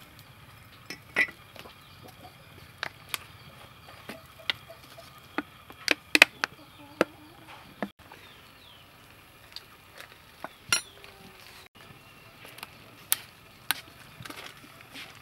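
Scattered sharp clinks and taps of a steel cleaver and sauce bottles against a small ceramic bowl and a wooden chopping board, coming irregularly, with the loudest cluster about six seconds in.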